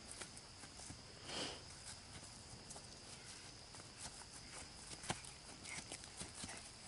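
Quiet outdoor field ambience: a faint steady high-pitched hum under scattered small clicks and taps, with a brief soft rustle about a second and a half in.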